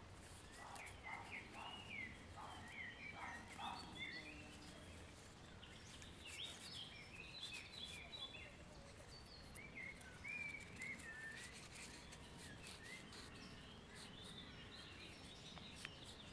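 Faint birdsong, several small birds chirping and warbling, over quiet outdoor ambience, with light scattered ticks of cord being handled.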